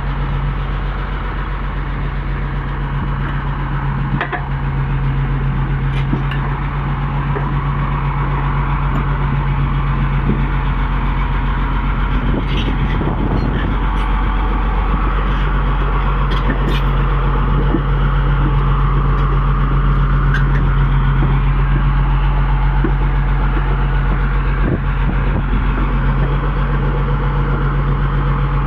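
Komatsu bulldozer's diesel engine running steadily with a deep, even drone. A few light clicks sound over it now and then.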